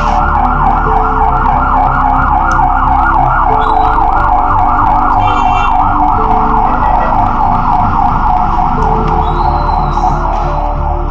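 Loud warbling siren sound, rising and falling about four times a second, over low held tones that shift now and then.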